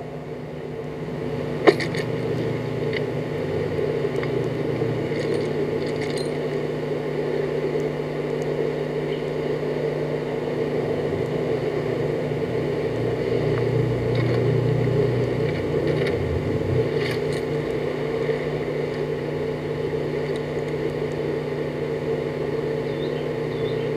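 Steady background hum and noise with no speech, and one sharp click about two seconds in.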